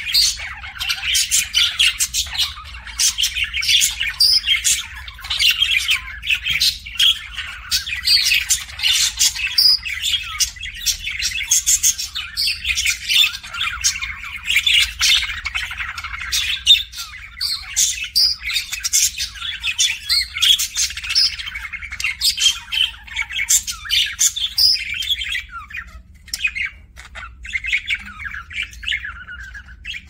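A pair of budgerigars chattering to each other in a dense, continuous stream of rapid chirps, squawks and clicks. The chatter thins out a few seconds before the end.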